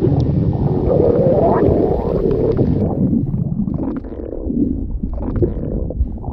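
Loud stomach growling from an empty, hungry stomach: a steady run of low rumbles and gurgles that rise and fall in pitch, with one rising gurgle about one and a half seconds in.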